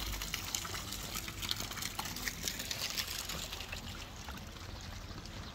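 Water splashing and trickling: a small fountain jet falling into a stone-lined pond, and pump-circulated water running down a rock-lined stream bed.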